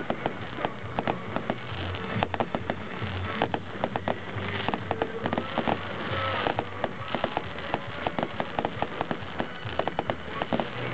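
Aerial fireworks bursting overhead: a rapid, irregular run of sharp pops and bangs, several a second.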